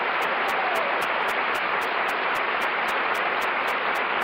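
Studio audience applauding: dense, even clapping heard on an old 1950 radio broadcast recording.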